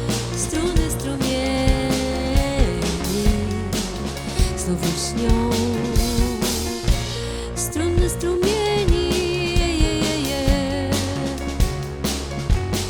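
Band playing an instrumental passage of a synth-backed song: drum kit beat, bass, and keyboard synthesizers carrying a wavering melody.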